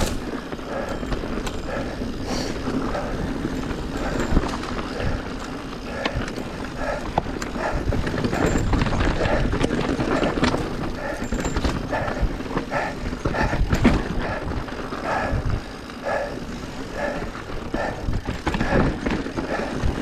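Mountain bike rolling down a rocky dirt singletrack: tyres crunching over loose stones and the bike rattling, with many small knocks and clatters.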